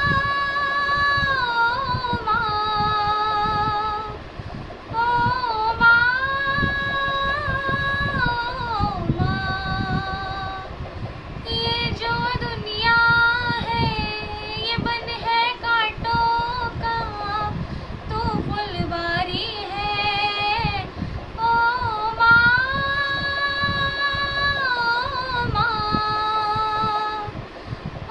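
A girl singing a song solo without accompaniment, holding long notes that waver in pitch, with short pauses for breath between phrases.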